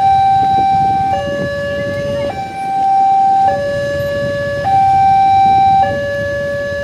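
Railway level-crossing warning alarm sounding its two-tone signal, a higher and a lower tone alternating, each held a little over a second, the higher one louder: the warning that a train is approaching and the barriers are down. Low road-traffic noise from waiting motorcycles and cars runs underneath.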